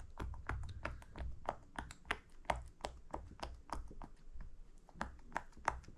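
Silicone pop-it fidget toy having its bubbles pressed in one after another: a quick, uneven run of soft pops, several a second.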